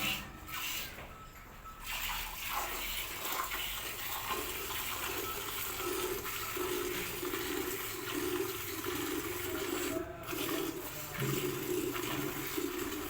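Milk streaming into a pail as a cow is milked, in a regular rhythm of about one to two pulses a second.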